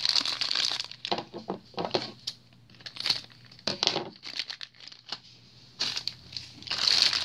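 Shiny plastic blind bag crinkling in the hands as it is opened: irregular crackling, loudest in the first second and again near the end, with scattered sharp crackles and quieter gaps between.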